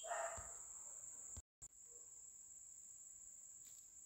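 Quiet room tone with a faint, steady high-pitched tone, like an insect trill. A brief faint murmur comes at the very start, and the sound cuts out completely for a moment about a second and a half in.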